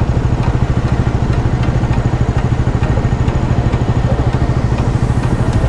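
Motorcycle engines idling at a standstill, the nearest one running with an even, rapid throb.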